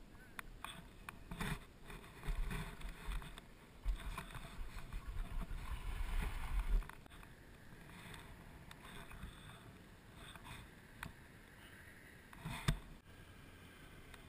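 Skis hissing and crunching over snow while towed on a rope, with low rumbling buffets on the microphone for the first several seconds, then a quieter steady hiss and one sharp knock near the end.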